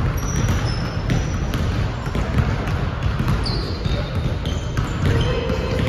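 Basketballs dribbled on a hardwood gym floor: many overlapping bounces, with a few short high squeaks.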